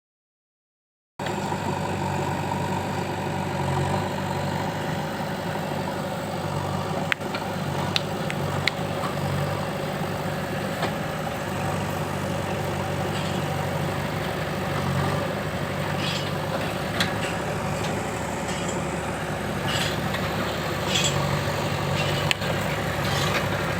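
Heavy diesel engine running steadily, with a few short knocks along the way.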